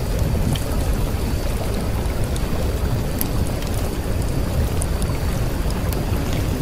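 Steady low rumbling noise with scattered faint ticks, like a rain or storm ambience recording.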